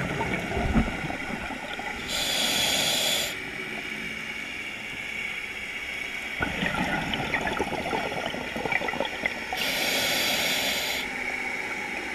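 Scuba diver breathing through a regulator underwater. There are two hissing inhales through the demand valve, about two seconds in and again near ten seconds, each lasting over a second. Between them come gurgling, crackling bursts of exhaled bubbles.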